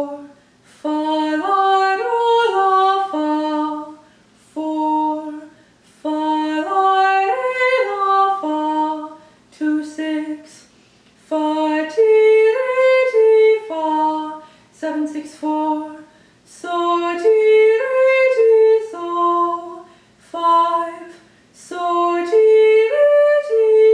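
A lone female voice singing solfège arpeggios unaccompanied. Each chord is sung as a short run of notes stepping up and back down, in the manner of do–mi–so–mi–do, with five such patterns in a row and brief spoken chord numbers in the gaps between them.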